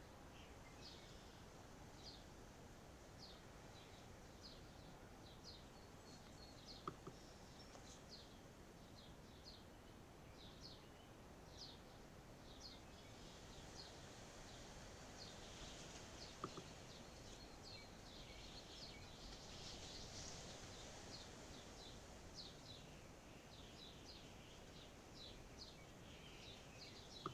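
Faint outdoor ambience with birds chirping: many short, high, downward-sliding chirps scattered irregularly throughout. Two brief clicks stand out, one about a quarter of the way in and one a little past halfway.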